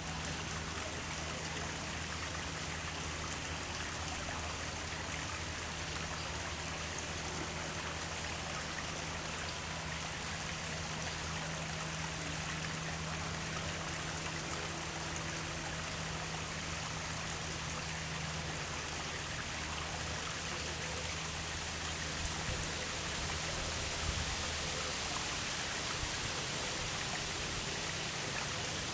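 Steady rushing of running water, even and unbroken, with a faint low hum underneath.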